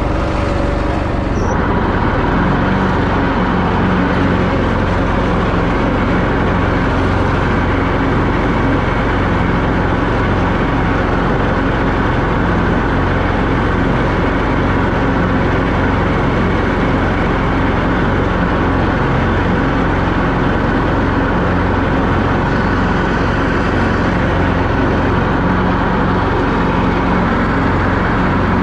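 John Deere zero-turn lawn mower running steadily under load, its engine and spinning 54-inch deck blades mowing grass.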